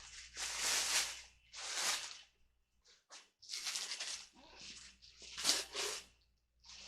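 A series of short rustling, rubbing sounds, about six in a row with brief pauses between them, as stand-mixer parts and their packaging are handled.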